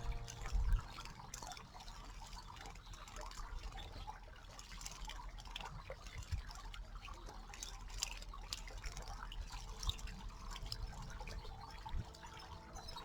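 Water trickling in a small stream, with many irregular small splashes and drips.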